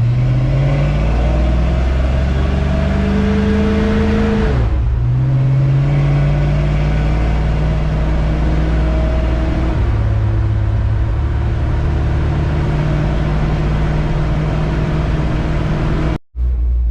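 A 1970 Dodge D100's 383 big-block V8, fitted with a Holley Street Dominator intake, pulling the pickup up through the gears of its automatic transmission. The engine note climbs, drops sharply about four and a half seconds in as the transmission upshifts, climbs again, then settles to a steady cruise. The sound cuts out briefly near the end.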